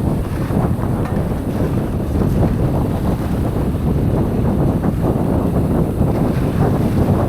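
Wind buffeting the microphone of a mountain biker's camera while riding, with a dense, irregular rumble and rattle from the bike over the trail.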